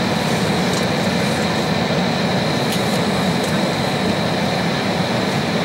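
Cabin noise of an Embraer 190 airliner moving on the ground, its General Electric CF34 turbofans running at low power: a steady low rumble with a thin, high, steady whine over it.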